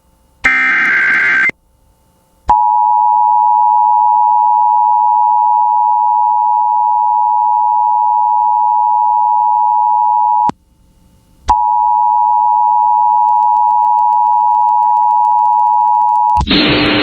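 Emergency Alert System broadcast tones: the end of a SAME digital data header, a short buzzy burst about half a second in, then the two-tone EAS attention signal (853 and 960 Hz together) held for about eight seconds, a one-second gap, and the attention tone again for about five seconds. An announcer's voice starts just before the end.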